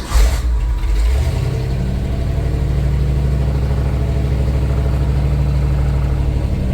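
1967 Ford F100 engine on Holley Sniper throttle-body fuel injection starting: a brief rough burst as it catches, then from about a second in a steady fast idle. It fires right away, with no starting fluid needed.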